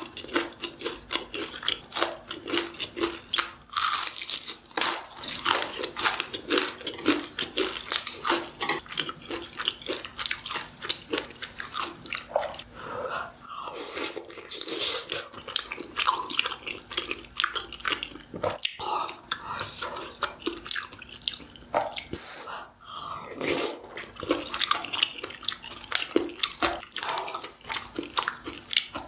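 Close-miked eating: a steady run of bites and chewing with crunchy, wet mouth sounds.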